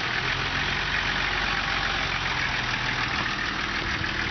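Dubbed-in vehicle engine sound effect running steadily at idle, starting and stopping abruptly.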